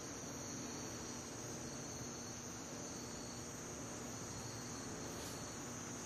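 Crickets chirring steadily in the background, a continuous high-pitched trill over a low, even hiss.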